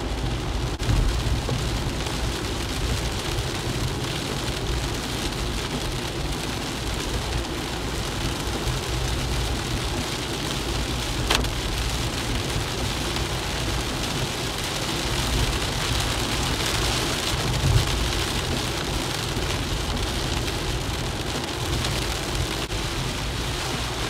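Heavy rain drumming on a car's windscreen and roof, heard from inside the moving car, over the low rumble of the engine and tyres on the wet road. A short sharp click sounds about eleven seconds in, and a brief thump near eighteen seconds.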